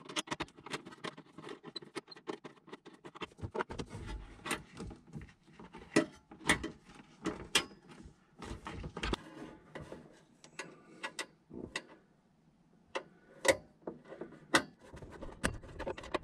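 Steel 5/32 Allen wrench working the terminal lug screws of an RV power converter: irregular metallic clicks and taps as the key turns and shifts in the lugs, with a short quiet spell about twelve seconds in.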